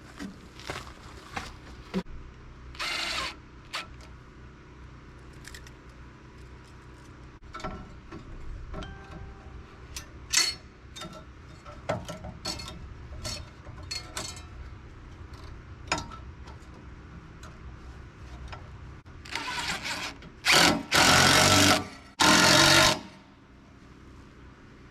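Scattered clicks and knocks of hardware and tools being handled while an LED light bar is fitted to a tractor's rollover bar, with two loud, harsh bursts of about a second each near the end.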